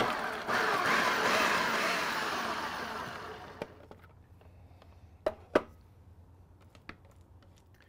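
Food processor running a short burst, blending avocado, jalapeño and onion, its whir fading away over about three and a half seconds as the motor winds down. A few sharp clicks follow.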